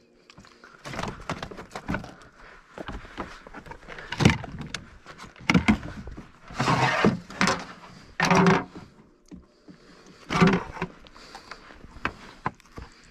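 Irregular knocks, bumps and short scraping slides of gear being handled on a plastic fishing kayak, as a landing net is worked and a measuring board is pulled out and laid across the lap. The loudest are a handful of sharp bumps and a couple of longer scrapes near the middle.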